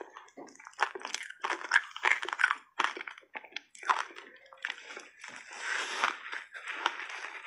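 Close-up crunching and chewing of a passionfruit block ice coated in matcha powder, with irregular sharp cracks as the ice breaks between the teeth.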